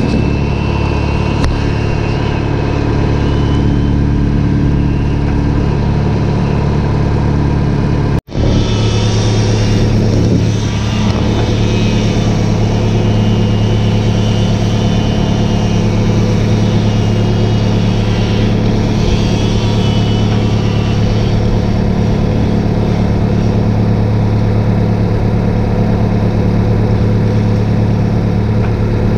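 Logging skidder's diesel engine running steadily close by. It cuts out for a split second about eight seconds in, then runs on at a slightly higher speed.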